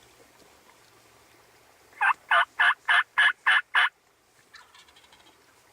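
Turkey yelping: a run of seven short, loud, evenly spaced notes, about three a second, stopping abruptly after about two seconds.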